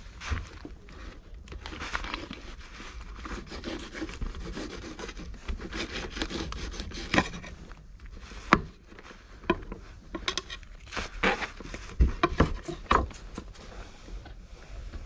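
Cat fur rubbing and scraping against the camera's microphone as cats brush past it, with irregular sharp clicks and knocks of bodies and paws against the camera and the wooden board.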